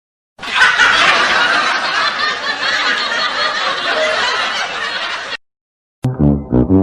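Laugh-track sound effect: a crowd laughing together for about five seconds, then cutting off abruptly.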